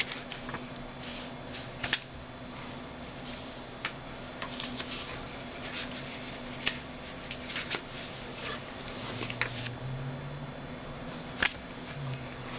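Sheets of paper stationery and memo pads rustling and crackling as they are handled and leafed through, with scattered sharp crinkles. A steady low hum runs underneath.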